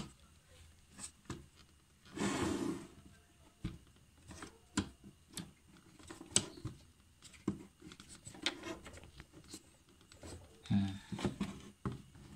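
Plastic and metal parts of a photocopier drum unit being handled and pulled apart: scattered clicks and knocks, with one longer scraping noise about two seconds in.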